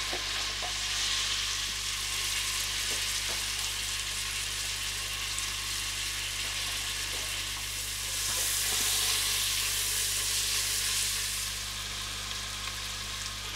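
Sliced carrots, leek, onion and green pepper sizzling as they fry in olive oil in a pressure cooker over medium heat, a steady hiss that grows louder for a few seconds about eight seconds in.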